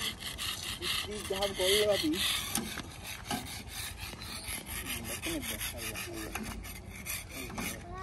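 Rough scraping on the road surface, many quick strokes in a row, like a rasp or saw.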